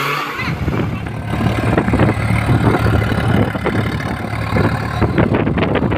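Heavy diesel engine of a tractor or backhoe loader running steadily with a low, rough hum, coming in a moment after the start.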